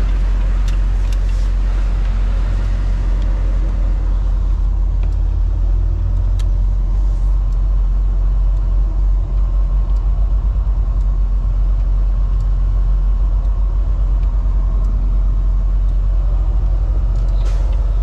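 Semi-truck's diesel engine running as heard inside the cab while the truck creeps along at low speed: a steady low drone with an even hum above it. From about halfway it takes on a fast, even pulsing, and a few faint clicks come in the first seconds.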